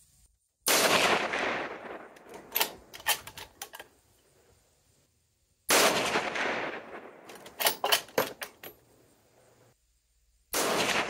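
Three rifle shots about five seconds apart, each a sudden loud report with an echo lasting a second or two. A run of sharp clicks and knocks follows each shot.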